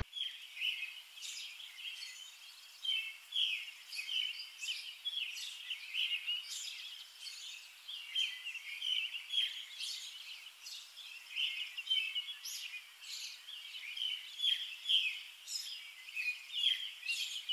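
Small birds chirping: a dense, continuous run of short, high chirps overlapping one another, with no low sound beneath.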